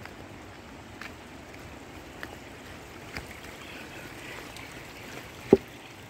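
Steady rushing of running water from a stream or waterfall, with a few faint taps and one sharp knock about five and a half seconds in.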